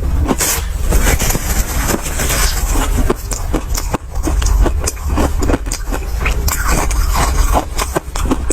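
An ice ball coated in matcha powder being crunched and chewed close to the microphone: rapid, irregular cracking crunches over a steady deep rumble.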